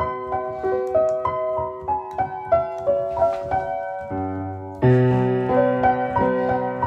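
Piano-toned keyboard playing a melody of short notes over held chords. A lower, fuller chord enters about four seconds in and gets louder just before five seconds.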